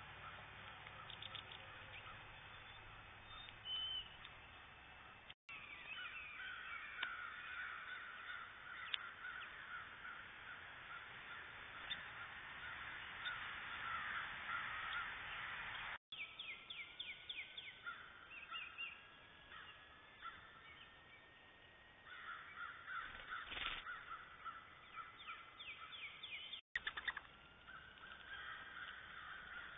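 Wild birds calling around a backyard feeder, including quick series of short notes. The sound drops out briefly three times where the trail camera's clips are joined.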